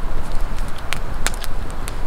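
Wood campfire crackling, with several sharp pops scattered through over a low steady rumble.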